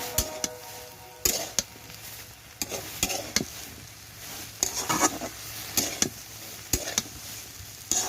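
A spatula stirring mixed vegetables and spices in a frying pan, with irregular scrapes and knocks against the pan over a faint sizzle.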